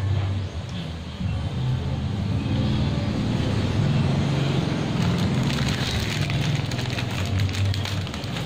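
Plastic snack wrapper crinkling as it is handled and torn open, starting about halfway through, over a steady low hum.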